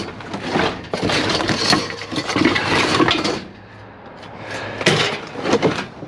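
Junk in a dumpster being shifted and rummaged through: a run of clattering and crunching lasting a couple of seconds, then two sharp knocks near the end.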